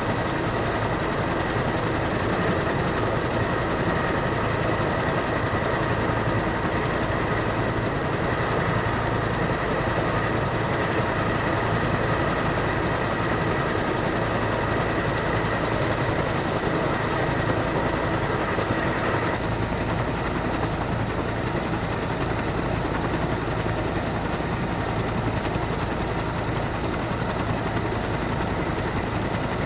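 Steady jet engine noise with a high, even whine. Part of the upper sound drops away about two-thirds of the way through.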